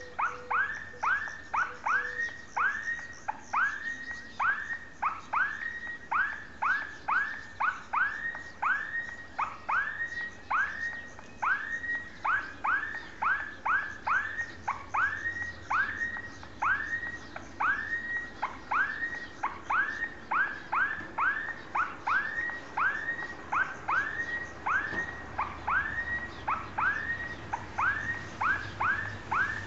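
Electronic level-crossing warning alarm sounding continuously: a falling tone repeated roughly twice a second, the repeats unevenly spaced. This is the crossing warning that a train is approaching.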